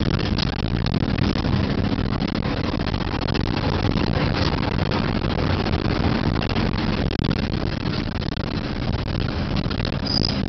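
Car driving, heard from inside the cabin: steady engine hum mixed with road and tyre noise.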